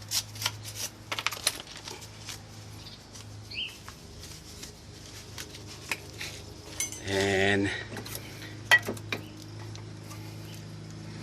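Brake caliper hardware being handled: scattered light metallic clinks and taps of steel parts, one sharper click near the end, over a faint steady low hum.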